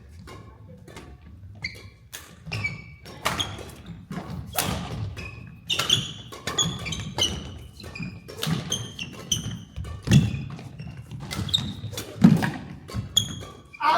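Badminton rally on an indoor court: racket strings smack the shuttlecock again and again, amid thudding footwork and short squeaks of court shoes, with one heavy thud about twelve seconds in.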